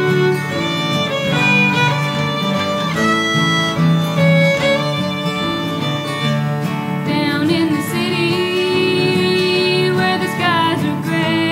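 Bluegrass fiddle playing a melodic instrumental lead over plucked acoustic bass guitar. About seven seconds in the fiddle drops out and a woman's voice starts singing over the plucked accompaniment.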